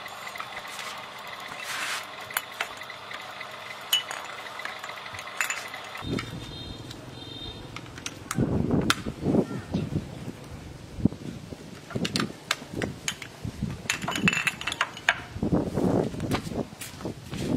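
Small electric motor belt-driving two car alternators, running with a steady hum and whine that cuts off suddenly about six seconds in. After that come irregular clicks and knocks of plugs, sockets and bulbs being handled.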